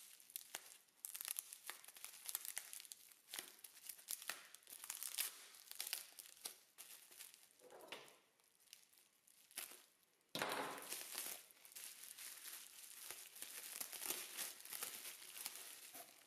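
Pink plastic bubble wrap crinkling and rustling as it is handled, peeled open and pulled apart, with a sticker label being torn off. A denser, louder stretch of crinkling begins about ten seconds in.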